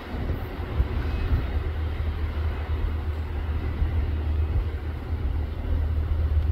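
Union Pacific freight train running past: a steady low rumble.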